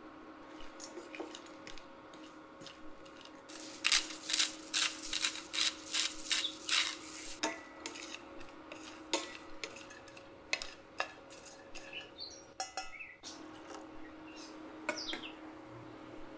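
Wooden spatula stirring chopped walnuts in a stainless steel pan, clacking and scraping against the metal, with a quick run of loud clacks about four seconds in. A steady faint hum runs underneath.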